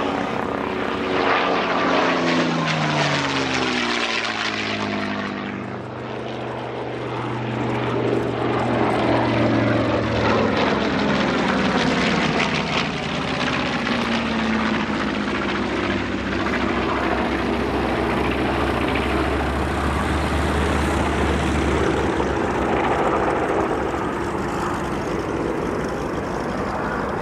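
Propeller warbirds flying past. A P-51 Mustang's Merlin V12 makes a low pass, its engine note dropping sharply in pitch in the first few seconds. The B-25 Mitchell's twin radial engines then pass with another falling drone, followed by a steady engine drone as the bomber and a Mustang fly together.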